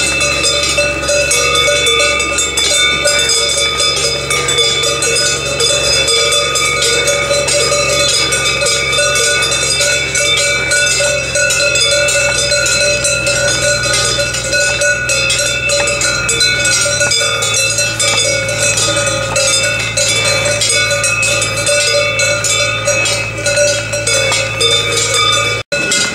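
Many cowbells on a herd of walking cows clanging together in a continuous jangle of several ringing pitches. It breaks off for an instant near the end.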